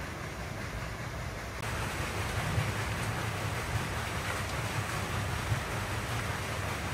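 Water rushing steadily through a narrow stone-walled mill channel, over a low rumble. The rush gets louder about a second and a half in.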